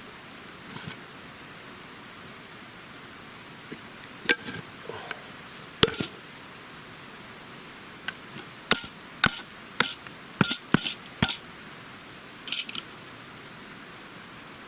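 A metal camp rice pot being handled after cooking over the fire: a couple of sharp metallic knocks, then a run of about eight clanks and clinks as it is lifted and set down, ready to be turned upside down for the rice to steam.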